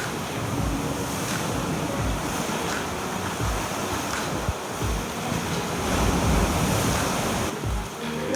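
Surf washing onto a beach, a steady rush of breaking waves, with wind buffeting the microphone in low thumps.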